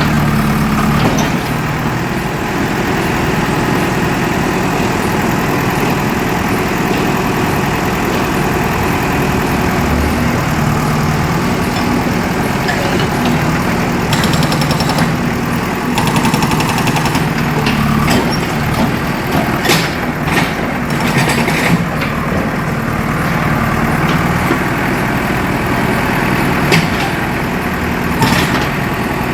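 JCB 3DX backhoe loader's diesel engine running steadily. Bursts of rapid hammering, typical of the hydraulic rock breaker, come about halfway through and again several times near the end.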